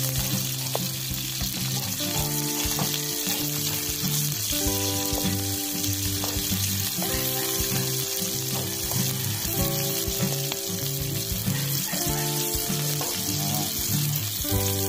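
Garlic and sliced onion sizzling in hot oil in a metal wok, stirred with a metal spatula that now and then scrapes and clicks against the pan. Background music of held notes plays under the sizzle.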